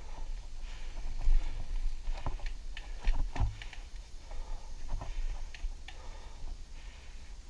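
Mountain bike riding a bumpy dirt singletrack: a steady low rumble of the ride, with the bike knocking and rattling sharply over roots and bumps several times, loudest a little over a second in and again about three seconds in. The rider's heavy breathing comes through faintly in the quieter stretches.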